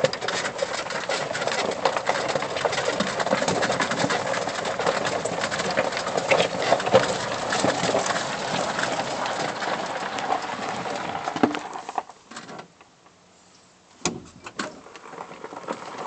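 Lifted E-Z-GO golf cart driving on a leaf-strewn dirt trail: tyres crunching over dry leaves and gravel while the cart rattles. It stops about twelve seconds in, and a few sharp knocks follow.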